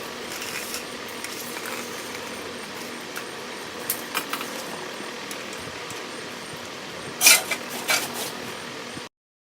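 Coiled resistance wire from a clothes dryer element clinking as its loops are handled and spaced apart, with a few light clinks about four seconds in and louder ones around seven to eight seconds. A steady fan hum runs underneath, and everything cuts off suddenly just before the end.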